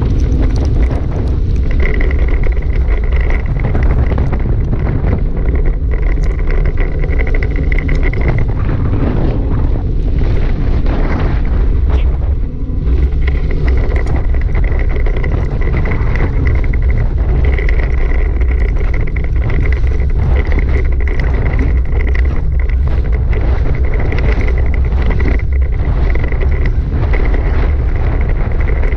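Dog scooter rolling fast over a gravel road: a steady rumble of tyres on gravel mixed with wind buffeting the camera microphone, with scattered small ticks. A thin high whine comes and goes.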